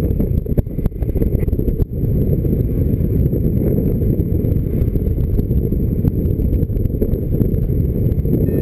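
Wind rushing over an action camera's microphone in paraglider flight: a loud, steady low rumble of buffeting with scattered small crackles, briefly dropping about two seconds in.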